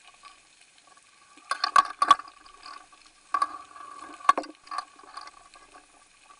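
Underwater audio from a camera rigged on the fishing line, thin and without bass: a faint steady hum with a few sharp clicks and knocks, a cluster about two seconds in and more past three and four seconds, as the hooked tope twists on the line.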